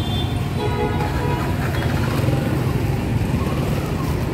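Street traffic: a steady low rumble of passing vehicles.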